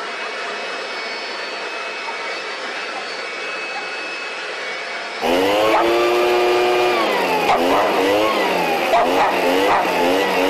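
Gas leaf blower running steadily with a high whine. About five seconds in, a louder part starts: a dog barking at the blower, with long drawn-out calls that fall in pitch and quick short barks.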